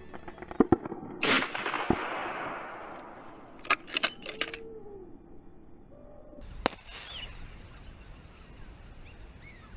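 Fireworks going off about five metres away: a loud bang about a second in followed by a long fading hiss, then a quick cluster of sharp reports around four seconds in, and another single bang near seven seconds.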